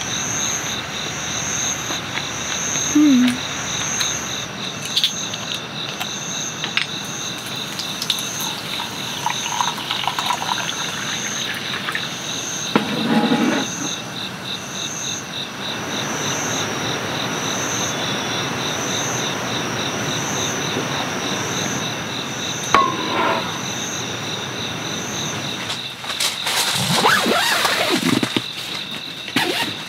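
Steady chorus of night insects: a high chirp pulsing a little more than once a second over a faster, lower trill. A few knocks and clatters of camp cookware being handled about halfway through, and louder rustling near the end.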